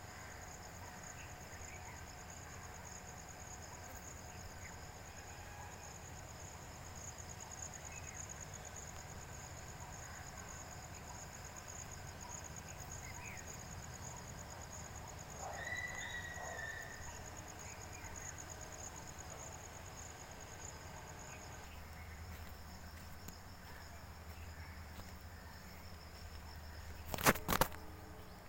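Steady high-pitched insect chirring, with a few faint short chirps in the middle. The chirring thins about three quarters of the way through, and a sharp double click near the end is the loudest sound.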